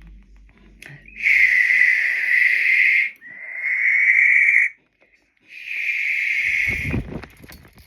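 Barn owl giving three long, rasping screech-like calls in a row, with a low thud of handling near the end.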